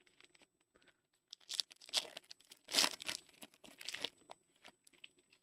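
A trading-card pack wrapper being torn open and crinkled, with irregular crackling rustles that are loudest about halfway through.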